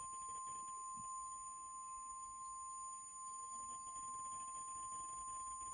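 Emergency Alert System attention tone: one steady, unbroken electronic beep at a single pitch, held throughout, sounding before an emergency alert message.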